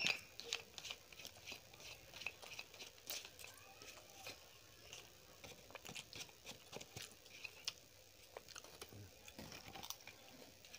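Quiet, close-miked chewing of soft yellow rice, with many small wet mouth clicks and smacks scattered throughout.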